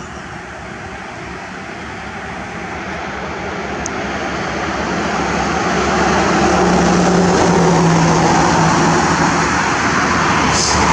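Road traffic noise from passing cars, building up over the first six seconds and then holding steady, with a low engine hum that dips slightly in pitch partway through.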